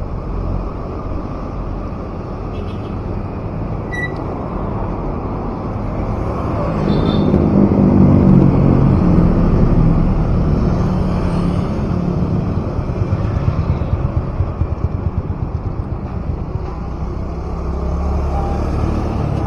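Street traffic heard from a moving e-bike: a steady low rumble of wind and road noise, with a vehicle engine running loudest alongside through the middle. A short high beep sounds once about four seconds in.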